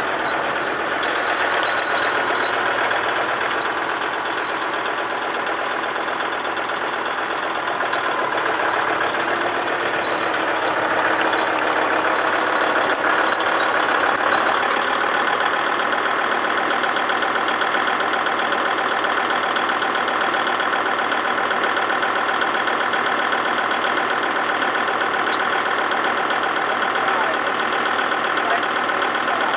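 Kubota tractor's diesel engine running steadily, with a few light clicks over the first half.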